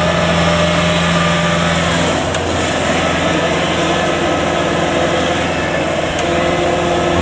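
Kubota rice combine harvester's diesel engine running steadily as the machine crawls on its tracks through deep paddy mud, its note shifting about two seconds in.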